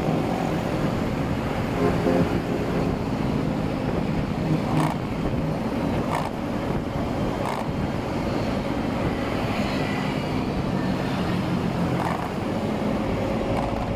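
Motorbike riding in city traffic: steady engine and road noise heard from the rider's seat, with wind on the microphone and other scooters close by.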